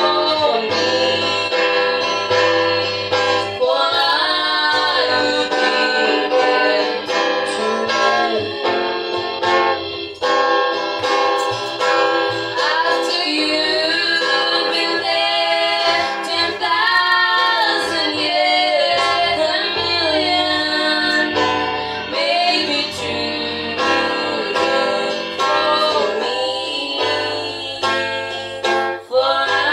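Two girls singing a gospel song together into microphones, accompanied by an acoustic guitar.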